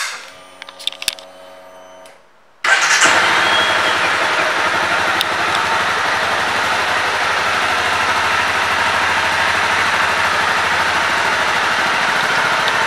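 The 2011 Honda CBR250R's single-cylinder engine starts suddenly about two and a half seconds in and then runs at a steady idle. Before it fires there is a short steady hum and a few light clicks.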